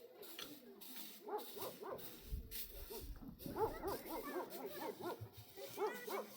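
Several animals whining and yelping in short, overlapping rising-and-falling cries, busiest from about three and a half seconds in, over repeated brief hissing swishes.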